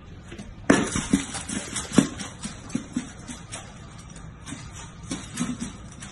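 Golden retriever eating from a metal food bowl on a hardwood floor: irregular knocks and clinks against the bowl. The loudest knocks come about two-thirds of a second in and again about a second later.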